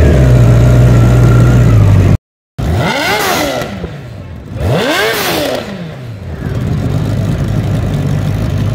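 Honda CBR1000RR Fireblade's inline-four engine on its stock exhaust, idling, then, after a brief drop-out about two seconds in, revved twice, each rev rising and falling back within about a second, before settling back to a steady idle.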